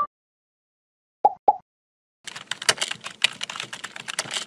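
Two short pops, then rapid computer-keyboard typing, a quick run of key clicks starting about halfway through.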